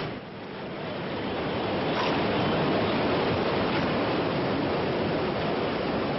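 Ocean waves: a steady wash of surf that builds over the first second and then holds even.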